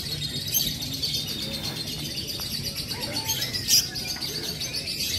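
Caged lovebirds singing a long, fast, unbroken high chattering trill, the continuous 'konslet' song judged at lovebird contests. One short, sharp, loud sound cuts through about three and a half seconds in.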